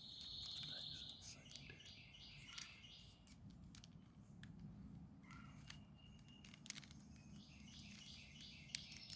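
Near silence: faint clicks of a hard plastic puzzle cube being turned by hand, with faint high chirping in the background.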